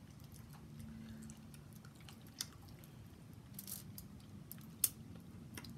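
Quiet close-up chewing and mouth sounds of someone eating a seafood boil, with a few sharp clicks; the loudest comes about five seconds in.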